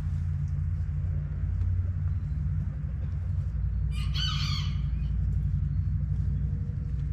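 A rooster crows once, a short wavering call about four seconds in, over a steady low rumble.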